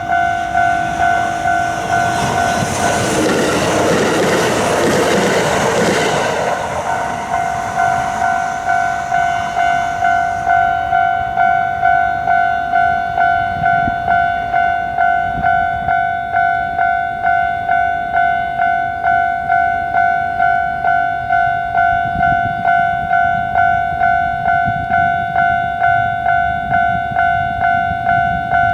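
Japanese level-crossing warning bell ringing its repeated 'kan kan' tone, about three strikes every two seconds. A train passes through the crossing in the first several seconds, its noise swelling and then fading away while the bell keeps ringing.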